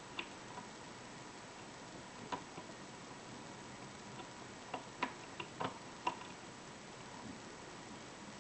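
Faint, irregular metallic clicks of a hook pick and tension wrench working the pin stacks of a 5-pin euro cylinder lock. The clicks come singly, with a quick cluster about two-thirds of the way through.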